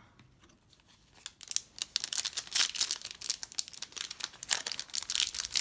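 Trading-card pack wrapper crinkling and tearing as it is opened by hand, starting about a second in as a dense, irregular run of crackles.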